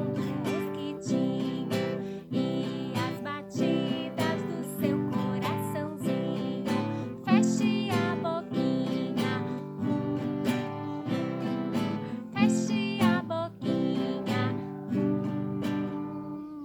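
Acoustic guitar strumming chords in a steady rhythm, with a faint singing voice.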